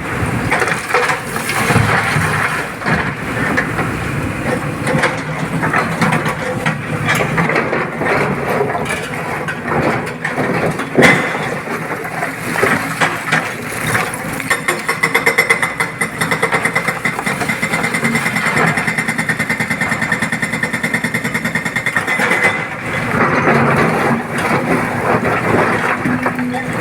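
Excavator engine running under load while loading stone into a dump truck, with scattered knocks and clatter and one sharp crack about eleven seconds in. A steady high whine joins past the middle for several seconds, then stops.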